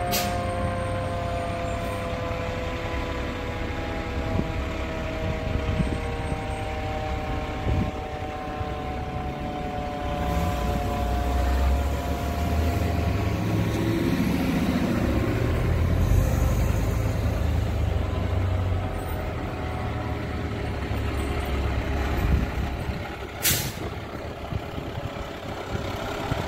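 Fire engine siren winding down, its pitch falling slowly over the first dozen seconds, over the low rumble of the fire truck's diesel engine as it pulls past. A short, sharp hiss of air brakes comes about 23 seconds in.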